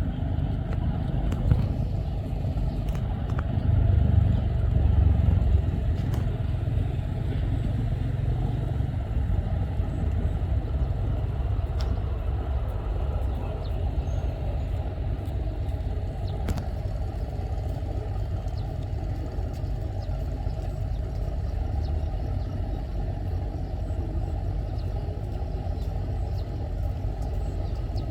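Low, steady engine rumble from a small pushboat driving a loaded rock barge, swelling louder about four to nine seconds in.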